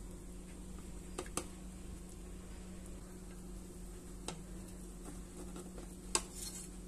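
A metal slotted spoon clicking against the pot about four times, loudest near the end, as bagels are moved in boiling water. Under it runs a steady low hum and a soft even hiss.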